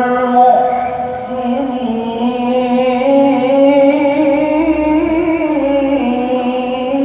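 Male qari's voice in melodic Quran recitation, drawing out one long ornamented vowel between "wallahu yuhibbu" and "al-muhsinin". The held note rises a little through the middle and sinks back near the end.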